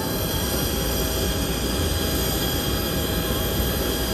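Steady apron machinery noise around a parked Boeing 737 being refuelled: a continuous low rumble with several steady high whining tones over it.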